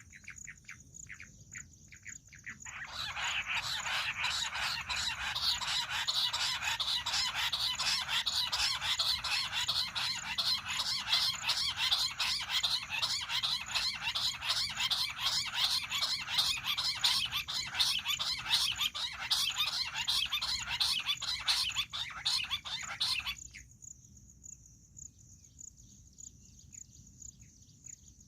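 Bush quail calling in a loud, rapid, continuous chattering series of many notes a second, starting about three seconds in and lasting about twenty seconds before stopping suddenly. Faint scattered chirps come before and after.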